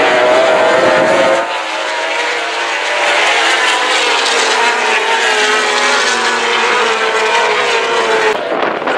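A pack of racing motorcycles passing at high revs, several engine notes overlapping and shifting in pitch. The sound changes abruptly about a second and a half in, losing its low end, and again near the end.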